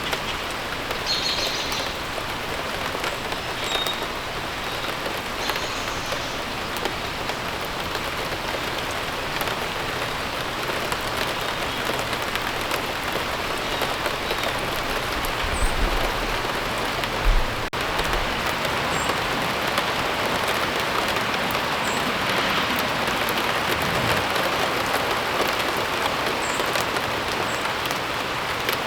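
Steady rain falling and pattering on surfaces, with a few faint bird chirps near the start and a brief low thump about two-thirds of the way through.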